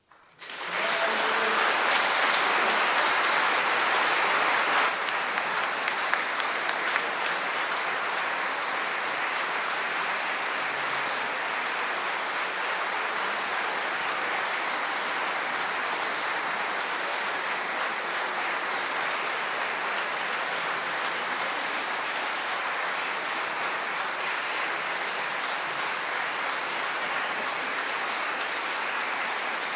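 Audience applauding. It starts suddenly out of silence and is loudest for the first five seconds, then goes on as steady clapping.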